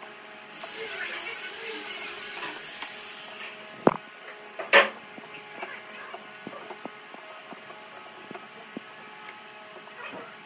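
Flat wooden stick scraping glue across a board for a few seconds, then two sharp knocks of wooden boards set down onto a glued stack, followed by small taps and clicks of handling, over a faint steady hum.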